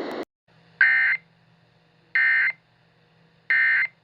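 Emergency Alert System SAME digital data tones: three short buzzing bursts, each about a third of a second and about a second and a half apart. This is the End of Message code sent three times to close the alert.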